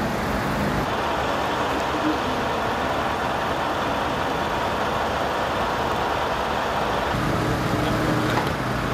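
Steady engine noise of emergency vehicles standing at a crash scene, a continuous rumble with a low hum. The sound changes abruptly about a second in and again about seven seconds in, after which the low hum is steadier and fuller.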